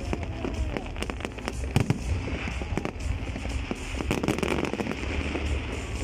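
Aerial fireworks bursting overhead: many sharp bangs and crackles in quick, irregular succession over a continuous low rumble.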